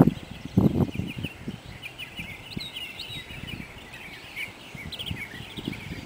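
Small birds chirping outdoors in a quick, continuous run of short high chirps. A few dull thumps and rustles come in the first second.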